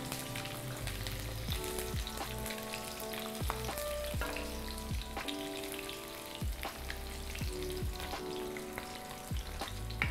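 Onion, garlic, bay leaves and star anise sizzling in hot oil in a wok as a spatula stirs them, with scattered sharp crackles; soft background music with held notes plays under it.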